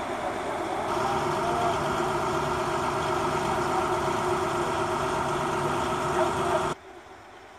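A steady mechanical hum like an engine or machine idling, with a few held tones in it, that cuts off abruptly near the end.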